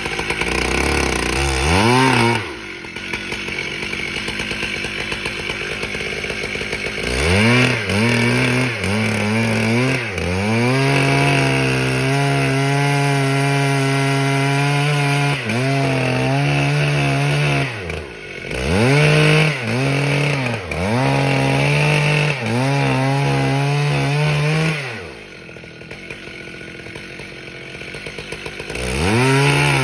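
A two-stroke chainsaw cutting pine, revving to full throttle and holding a high, steady pitch through long cuts, blipped up and down between cuts. It drops back to idle twice, near the start and again near the end.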